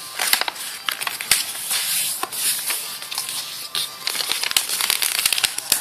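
Yellow PCB transfer paper crinkling and crackling as it is folded and pressed flat by hand, with many sharp irregular ticks of stiff paper creasing.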